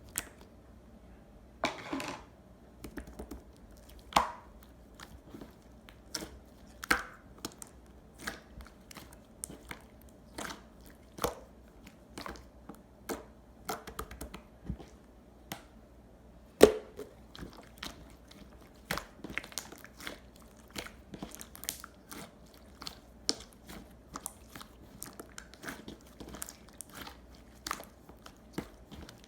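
Clear pearl slime being pressed, poked and stretched by hand, giving irregular wet clicks and pops, several a second, with one louder pop about two-thirds of the way through.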